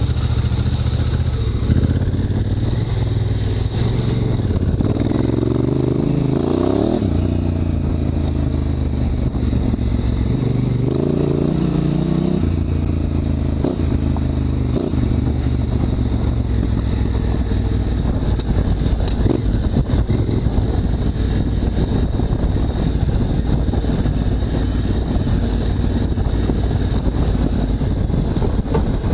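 Honda Africa Twin CRF1000L's parallel-twin engine running under way, its pitch rising and falling a few times between about five and twelve seconds in as the throttle is opened and closed, then running steadily.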